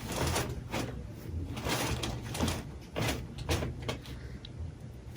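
A series of irregular short rustles and soft knocks, about a dozen spread unevenly, from people moving and handling things, over a low steady hum.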